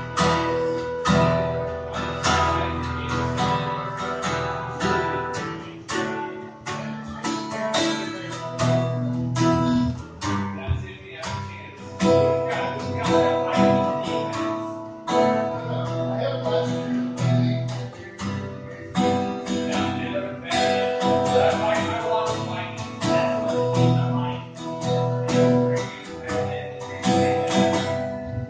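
Solo acoustic guitar strummed and picked in a steady rhythm, its chords ringing on between strokes.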